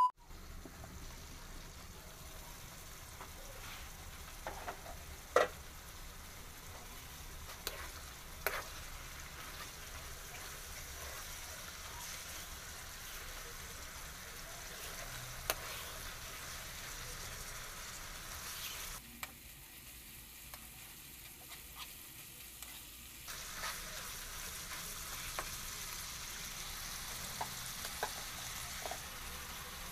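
Ground meat sizzling and simmering in its juices in a frying pan, with a few sharp clicks of a metal spoon against the pan as it is stirred.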